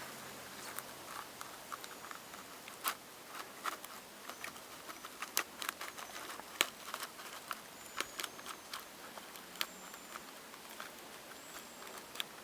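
Hazel dormouse snoring softly while asleep in a nest tube: irregular faint clicks and crackles, with a few short, thin, high whistles about every two seconds near the end.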